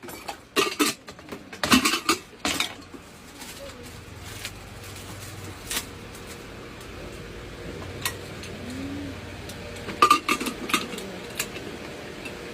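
Hard objects clinking and clattering: a burst of sharp clanks at the start, a few single clicks, then another cluster about ten seconds in, over a faint steady hum.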